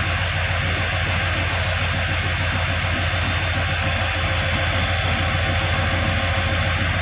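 Pakistan Railways HGMU-30 diesel-electric locomotive pulling a train away slowly, its engine working with a steady deep, evenly pulsing drone and a steady high whine over it.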